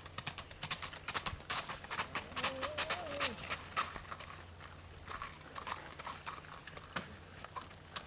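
Horse's hooves clip-clopping at a walk on a paved lane, closely spaced in the first half and thinning out as the horse moves on. A faint short call rises and falls near the middle.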